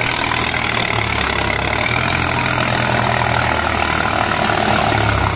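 Diesel tractor engines running hard under load in a tractor pulling contest, a loud steady drone whose low note shifts up and down every second or so.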